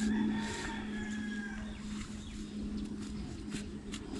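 Garden hoes scraping and knocking through loose, damp soil, a few faint dull strikes, over a steady low hum.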